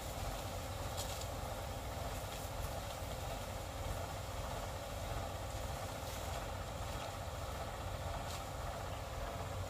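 Tractor engine running steadily, driving the sprayer pump while a spray gun throws a long jet of liquid.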